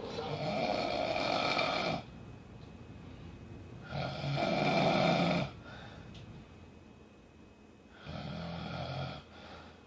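A person snoring in their sleep: three snores about four seconds apart, each one to two seconds long.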